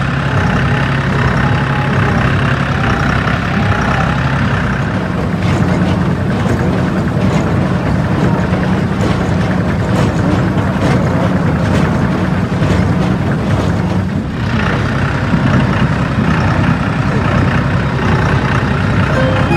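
Tractor engine running steadily, with a rapid clatter of knocks and clicks through the middle seconds.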